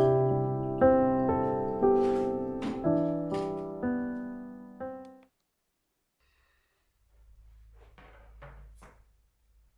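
Gentle piano music, single notes and chords struck one after another and fading, that cuts off about five seconds in. Near the end comes a faint low hum with a few soft clicks.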